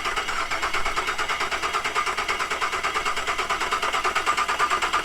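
A crash-damaged Holden Rodeo's engine being turned over on the starter motor with its ignition coils disconnected, so it cranks without firing. It gives an even, rhythmic chug of about five beats a second. The cranking is a check for internal damage, such as to the timing chains, before the engine is started.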